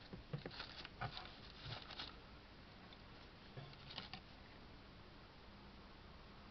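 A few faint, soft taps and clicks, clustered in the first two seconds and again about four seconds in, over quiet room hiss.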